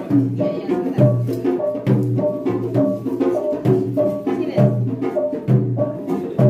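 Music with a steady drum beat and busy percussion under a short repeating melodic figure.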